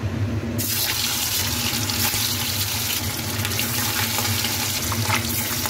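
Pieces of katla fish sizzling in hot oil in a kadai: a loud hiss starts suddenly about half a second in as the fish goes in and keeps up steadily, with a few small crackles of spattering oil.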